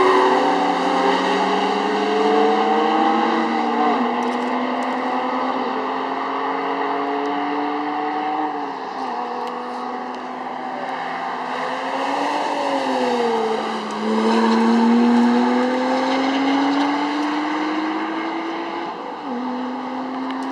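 Sports car engine pulling hard on a race track, its pitch climbing steadily through each gear and dropping sharply at upshifts about every four to five seconds, with a brief dip and recovery in the middle.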